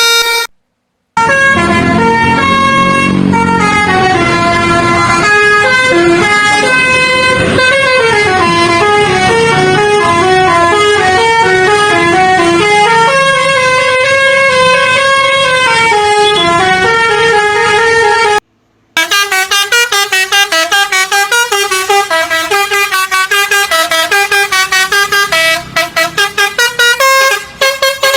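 Bus basuri 'telolet' multi-tone air horns playing a melody, the notes stepping up and down over a low rumble. After a short break near the two-thirds mark, a second horn plays rapid short, choppy notes.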